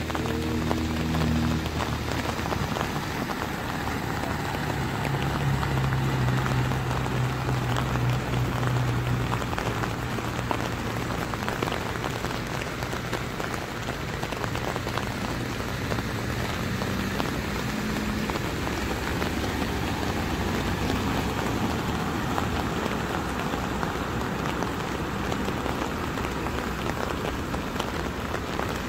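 Heavy rain falling steadily on a flooded street. A low engine hum from a vehicle in the water comes in about five seconds in and fades out a few seconds later.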